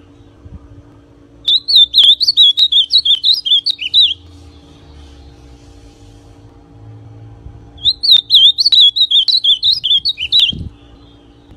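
Ultramarine grosbeak (azulão), a young bird still in brown plumage, singing two loud warbled song phrases of about two and a half seconds each, made of quick rising and falling whistled notes, the first starting about a second and a half in and the second about eight seconds in.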